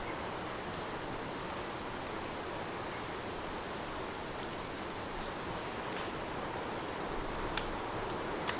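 Steady rain ambience, with a few short, high chirps over it and a couple of faint clicks near the end.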